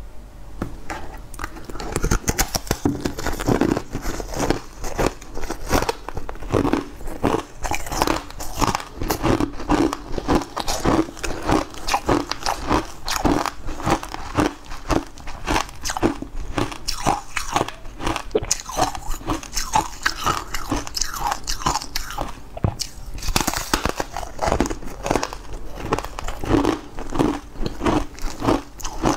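Dense, rapid crunching and crumbling of a dry, powdery green star-shaped cake, broken apart by hand and bitten and chewed, with many small crackles in quick succession.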